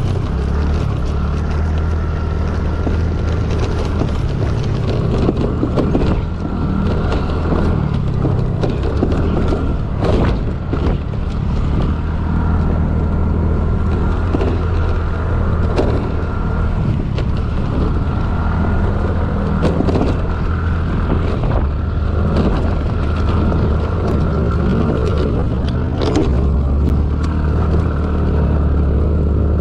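TVS NTorq 125 scooter's single-cylinder engine running hard under throttle on a rough dirt track, easing off briefly about ten seconds in. Several short knocks come through as the scooter hits bumps.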